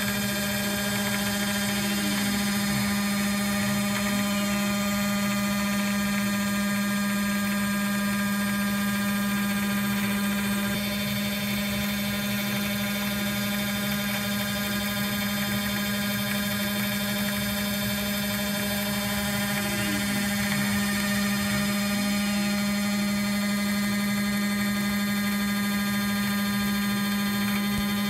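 CNC router spindle running with an end mill cutting a pocket in a metal plate: a steady high motor whine. Twice, a short pair of sweeps falls and then rises in pitch.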